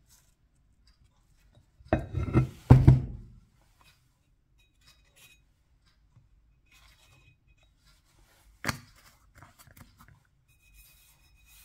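Heavy steel parts handled on a workbench: a few clunks and scrapes about two seconds in as the crankshaft is set down, then faint small rubs and ticks while valve-grinding compound is dabbed into the flywheel's taper bore, and one sharp knock later on.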